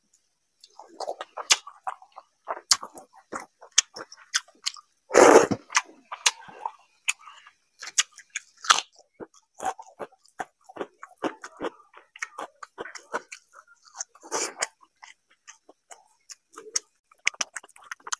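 Close-miked eating sounds: wet chewing and lip smacking of water-soaked rice (panta bhat) and fried fish, a dense run of irregular small smacks and clicks. A louder mouthful stands out about five seconds in, and another near fourteen seconds.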